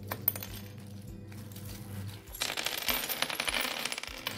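Tiny clear toy drinking glasses and goblets tipped out of a bag onto a wooden tabletop. A few light clicks come near the start, then a dense clatter of many small pieces clinking together lasts nearly two seconds near the end.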